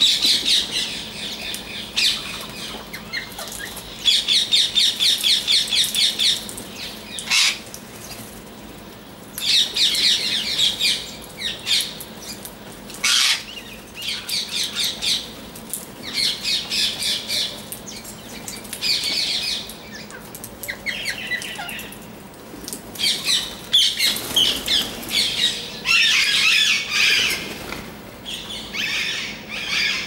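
A flock of rose-ringed parakeets screeching in runs of quick, sharp, repeated calls, each run lasting a second or two, with short pauses between.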